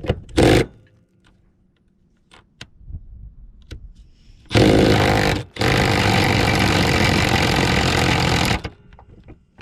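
Cordless impact wrench hammering on a rusted subframe bolt: a short burst about halfway through, then a steady run of about three seconds that stops abruptly. A few light clicks come before it as the tool is set on the bolt.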